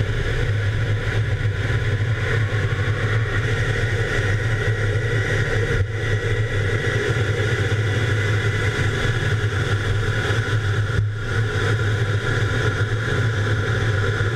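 A jet fighter's engines running at takeoff power, heard from inside the cockpit through the takeoff run, liftoff and climb: a loud, steady roar with a deep low drone and a high whine.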